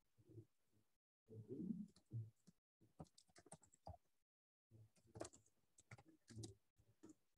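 Faint typing on a computer keyboard: irregular runs of quick key clicks, with a few soft low thumps in between.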